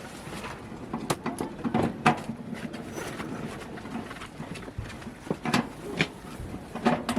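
Irregular light knocks and clicks at uneven intervals, a few louder ones about a second and two seconds in and again near the end, over a faint low hum.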